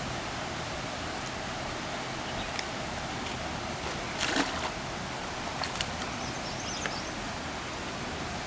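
Steady rush of flowing river water, with a brief louder splash about four seconds in as the keep net is worked at the water's edge, and a few light knocks.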